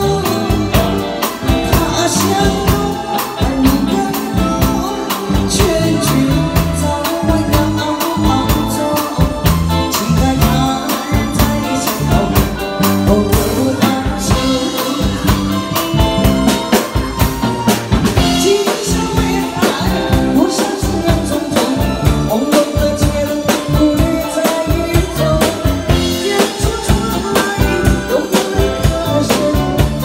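A woman singing a Mandarin song into a microphone over a live band, with drum kit and electric guitar.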